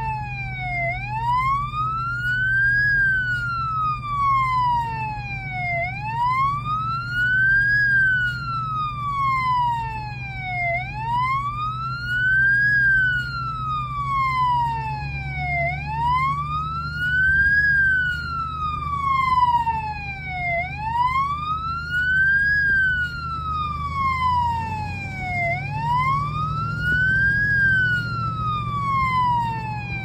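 Fire truck siren on a wail, its pitch sweeping slowly up and falling back about every five seconds, over a steady low hum.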